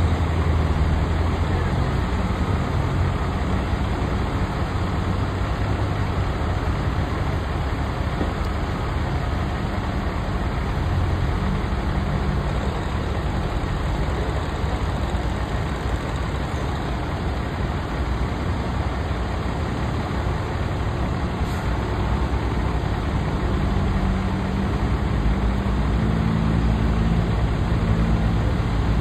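Diesel engine of a Cat high-reach demolition excavator running steadily with a low hum. The low rumble grows a little heavier near the end.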